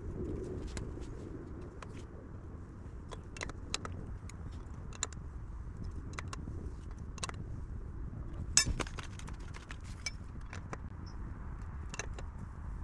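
Metal tools and bicycle parts clicking and clinking as they are handled, with one sharper metallic clink about two-thirds of the way through.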